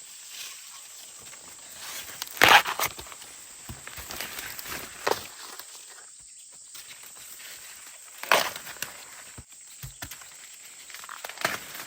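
Rustling and crunching of corn plants with footsteps, broken by a few sharp crackles about every three seconds, over a steady high insect drone.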